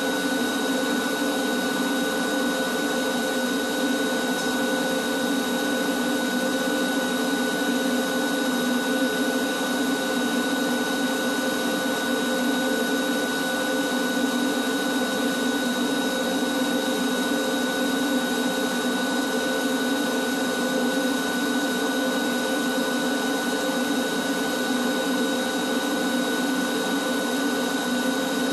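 Shop vacuum running steadily as it sucks dust off ceiling trusses and pipes through a long hose and wand: a constant whine over rushing air, unchanging throughout.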